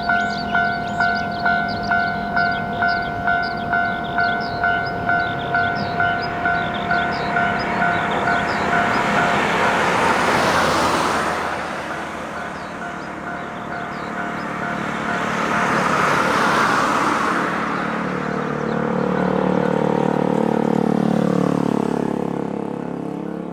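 Japanese railroad crossing warning bell ringing "kan-kan" at about two strokes a second, then a train passing with a rush of wheel and rail noise that swells twice and drowns out the bell. Near the end a lower humming tone bends up and down in pitch as the train goes.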